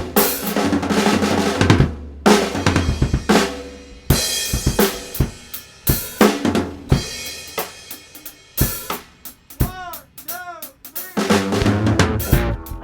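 Music led by a drum kit: kick drum, snare and cymbal strikes in a busy beat with fills, with sliding pitched notes in the middle stretch.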